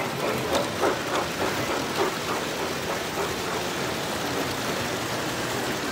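Large-scale toy train running on its track, a steady noise, with indistinct voices of other people in the first couple of seconds.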